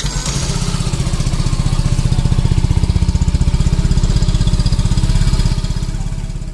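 Yamaha FZS V3's single-cylinder air-cooled engine idling, heard at the exhaust, with an even, rapid beat that fades away near the end.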